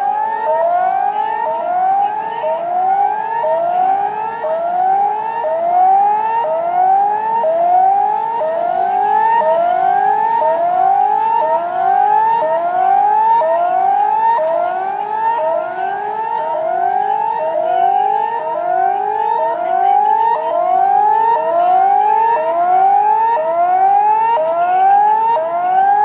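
Tsunami warning siren sounding a fast, repeating rising whoop: each sweep climbs in pitch in well under a second and snaps back down, a little more than one a second, without a break. It is the alarm for a tsunami alert, calling for evacuation of the coast.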